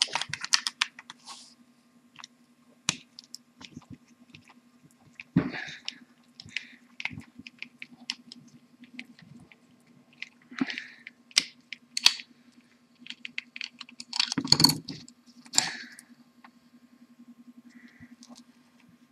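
Screwdriver prying and scraping at the plastic gear housing of a slow juicer's motor: irregular clicks and short scrapes, with a louder stretch of scraping about three quarters of the way through. A faint steady hum runs underneath.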